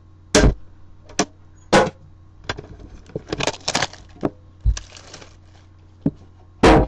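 Metal collector's tin being handled and opened: a string of sharp clanks and knocks, with a stretch of rustling in the middle and a louder knock near the end.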